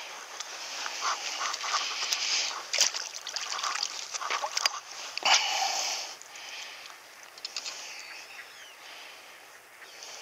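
Handling noise as a trout is unhooked from a minnow lure in a rubber-mesh landing net: uneven rustling and scraping with several sharp clicks, dying down after about six seconds.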